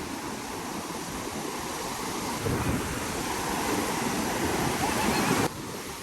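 Steady rush of water with wind on the microphone, getting louder about two and a half seconds in and cutting off abruptly near the end.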